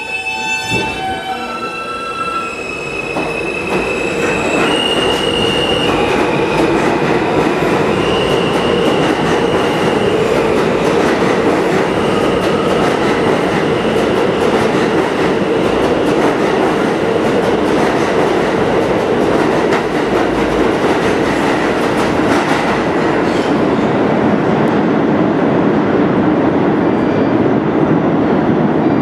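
NYC Subway R160A train accelerating out of the station. A high tone from its electric propulsion climbs in steps over the first several seconds, and the cars' wheels on the rails make a loud, steady rumble as the train passes.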